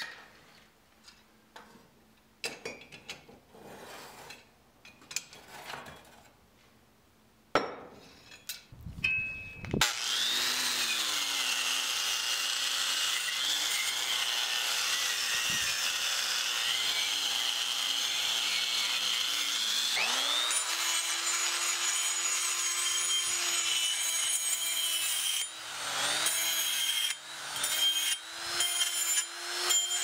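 Scattered light knocks and clatter, then about ten seconds in an angle grinder with a wire cup brush starts up and runs steadily, scouring forge scale off a forged steel axe head. About twenty seconds in the motor stops and spins up again with a different pitch, and near the end it cuts in and out several times as a small rotary burr works inside the axe eye.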